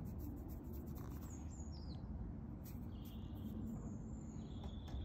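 Birds chirping: a few short high whistles, some falling in pitch, then longer held high notes, over a low steady rumble.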